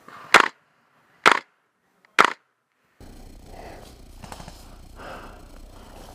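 Airsoft rifle firing three single shots a little under a second apart, each a short sharp crack. About halfway through, this gives way to a steady low hiss with faint rustling in dry leaves.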